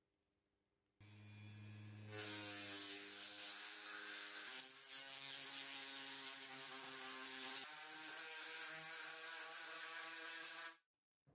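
Rotary multi-tool with a sanding bit running at high speed against a braided copper-wire cuff: a low hum as it starts about a second in, then a steady whine over a gritty hiss. The pitch shifts twice, and it cuts off suddenly near the end.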